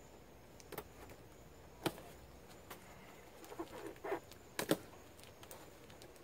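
Cardboard box being handled and opened at its top: a few sharp clicks and taps, the loudest a single one near two seconds and a quick double one near five seconds, with a brief crackle of cardboard flaps around four seconds.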